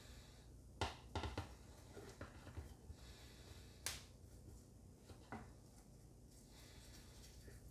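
Light clicks and taps of small parts being handled, a few sharp ones spread over several seconds, over a faint low hum.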